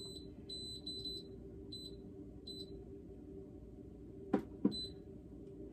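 Pampered Chef multi-cooker's control panel beeping as settings are selected: a string of short, high beeps at uneven intervals over the first two and a half seconds. A little past four seconds in come two sharp clicks close together, over a steady low hum.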